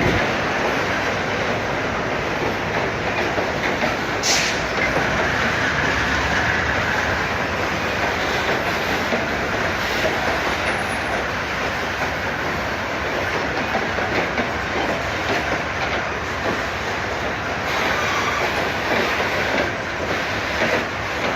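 Train passing, a steady noise of wheels running on the rails, with a sharp click about four seconds in.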